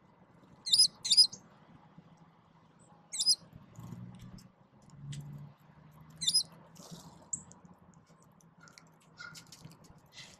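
Small songbirds chirping at a ground feeder: four short, sharp, high chirps, two close together about a second in, then one near 3 s and one near 6 s.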